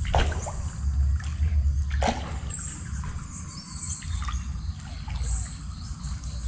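Stream water trickling and splashing, over a pulsing low rumble, with two sharp splashy sounds, one right at the start and one about two seconds in.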